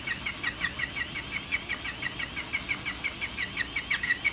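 Low-speed dental contra-angle handpiece spinning a felt polishing wheel against a composite front-tooth restoration: a steady high whine with a rapid, even chirping squeak about five or six times a second.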